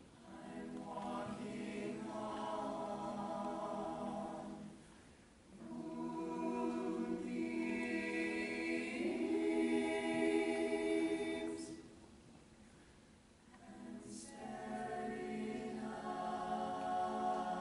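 Mixed-voice vocal jazz ensemble singing a cappella in sustained chords: three phrases with short breaks about five and twelve seconds in, the middle phrase the loudest.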